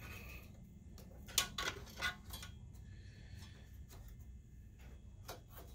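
A few light clicks and taps of a small screwdriver and plastic wire connectors as wires are worked loose from a harness, most of them in the first half and one more near the end, over a faint low hum.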